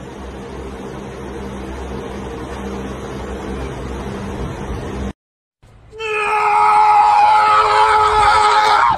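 Steady low humming background noise that cuts off about five seconds in. After a short silence, a small white puppy gives a long, high, wavering whining cry.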